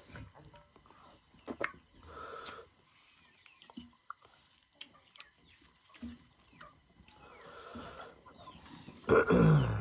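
Small clicks and chewing sounds of eating by hand, with a few short farm-animal calls and a loud call near the end that falls in pitch.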